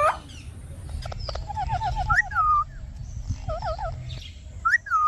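A parrot calling: a quick run of short chattering notes, then several whistles that swoop up and fall away, with a short warble between them.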